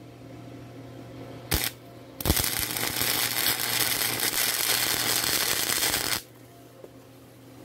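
Wire-feed welder's arc crackling as a screw is welded onto a snowblower's chute crank: a brief strike about a second and a half in, then a steady sizzling burn of about four seconds that cuts off suddenly.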